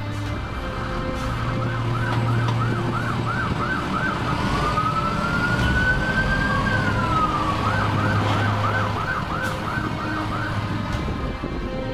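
Electronic vehicle siren. It gives a fast yelp for a couple of seconds, then one slow wail rising and falling, then the fast yelp again.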